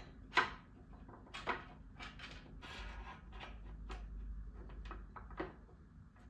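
Light knocks, clicks and scraping of parts being handled and seated as the headset bearings and fork go into a carbon road-bike frame. About ten sharp taps are spread unevenly, with rubbing noise between them.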